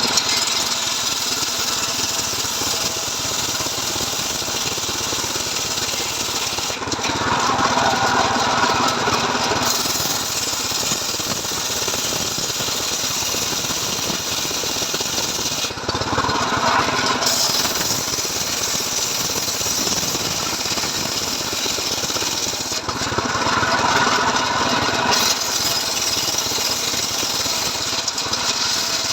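Stihl MS 381 two-stroke chainsaw, mounted on a homemade ripping rig, running continuously while sawing through a log. Its tone shifts for a couple of seconds three times: about a quarter of the way in, a little past halfway, and about three quarters through.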